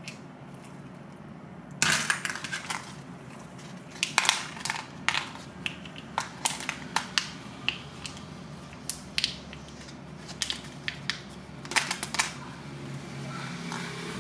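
A small plastic spoon clicking and scraping against a thin plastic candy tray while stirring and scooping small crunchy candy balls, in irregular bursts of sharp crackles and clicks.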